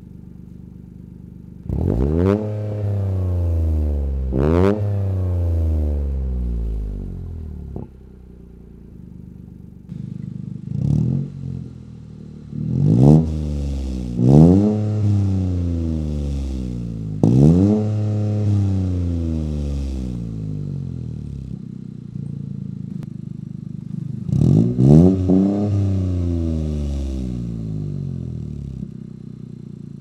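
Toyota GR Corolla's turbocharged 1.6-litre three-cylinder engine idling and being blipped about eight times through SXTH Element aftermarket exhausts, first the dual-exit and then the single-exit version. Each rev climbs quickly and then falls slowly back to idle, with a short pause between most of them and a quick double rev near the end.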